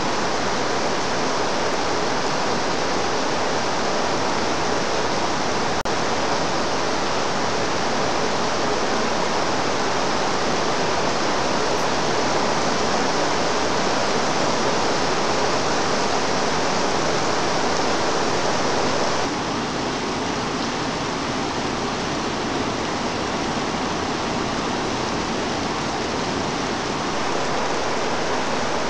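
Torrential rain pouring down on foliage and water, a dense, steady hiss. It drops slightly in level about two-thirds of the way through.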